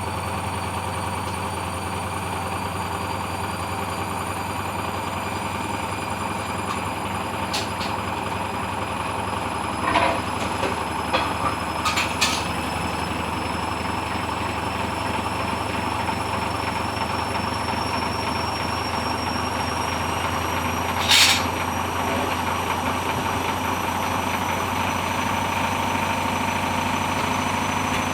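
Hoover Dynamic washing machine spinning an unbalanced, sudslocked load: the motor and drum run with a steady hum whose pitch creeps slowly upward. A few sharp knocks come about ten to twelve seconds in, and one more about twenty-one seconds in.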